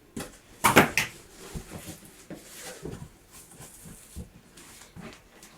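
Scissors and packaging being handled while a computer case is unboxed: a few sharp snips and crackles, loudest about a second in, then scattered smaller clicks and rustles.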